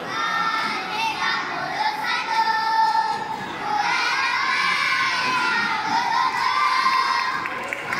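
A choir of young schoolchildren singing together in high voices, with long held notes in the second half.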